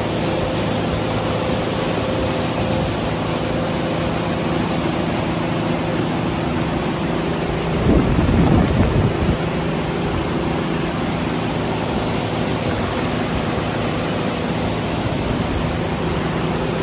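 Motorboat engine running steadily at speed while pulling a water skier, over the rush of wind and wake water. About eight seconds in, a louder gust of wind noise hits for a second or so.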